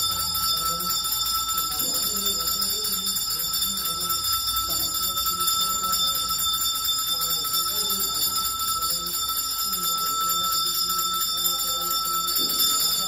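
Temple bells ringing continuously, with a low melody running underneath. The ringing stops abruptly just after the end.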